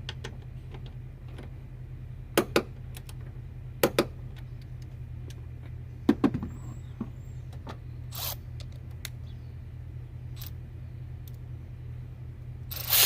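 A few sharp clicks and knocks over a steady low hum. Right at the end, a Milwaukee M12 Fuel high-speed ratchet starts up loudly, spinning on a running start against a bolt set to 60 foot-pounds.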